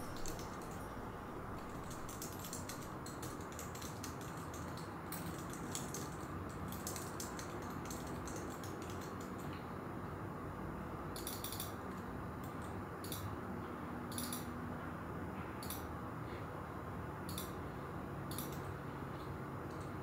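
A computer keyboard being typed on in quick, faint clicks for several seconds, then about seven single clicks of a mouse a second or so apart, over a steady low hiss of room tone.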